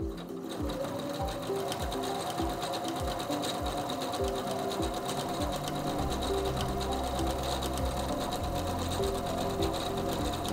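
SINGER C430 computerized sewing machine sewing steadily, its needle running at a fast even rate as it stitches a row of slant over-edge stitch on fabric. Background music plays underneath.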